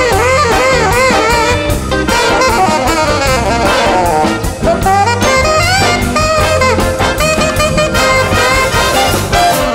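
Alto saxophone playing a bending, ornamented solo line over a big band's brass and rhythm section, with the drums keeping a steady up-tempo beat.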